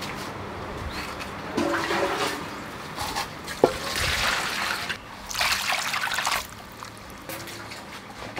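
Water poured from a plastic dipper into an aluminium basin of sea mushrooms, splashing in about three separate pours, with a brief knock between them.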